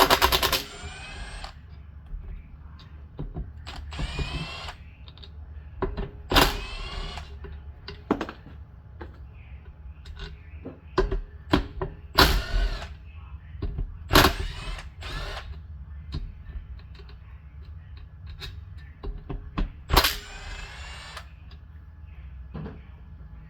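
Socket ratchet clicking in repeated bursts of about a second, with small metal taps between, as 3/8 bolts are loosened and run out of a small Briggs & Stratton engine.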